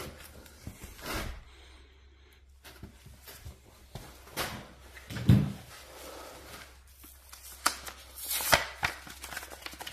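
Handling noises: scattered clicks and rustles, one dull thump a little past halfway, then the crinkling and clicking of a tire plug kit's plastic-and-card packaging being opened near the end.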